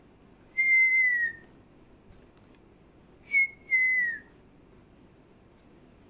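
African grey parrot whistling: one long, clear whistle that slides down at the end, then a short whistle and another longer one that falls in pitch.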